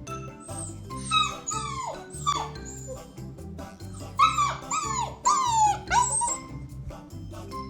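A dog whining in short high calls that each fall steeply in pitch, in two runs of about four calls, one about a second in and one about four seconds in, over background music.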